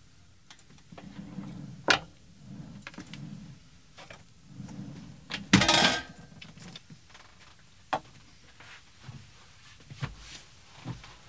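Clinks, knocks and clatters of cookware and kitchen utensils being handled, with a sharp knock about two seconds in and a louder half-second rattling clatter a little past halfway.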